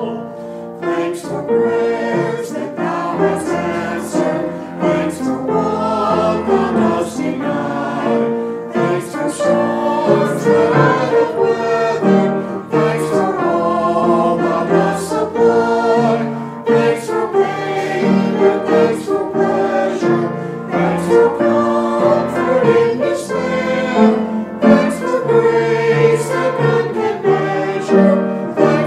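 Choir singing sacred music, sustained notes in several voices.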